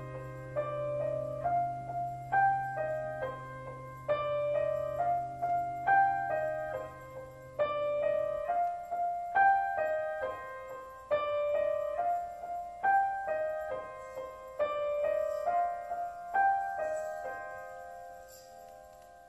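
Piano music: a repeating figure of single notes over a low held note that drops out about eight seconds in, fading out near the end.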